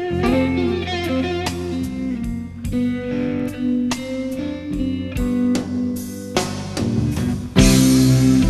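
Live jazz-rock band playing: electric guitar lines over bass guitar and drums. The band grows louder and fuller near the end.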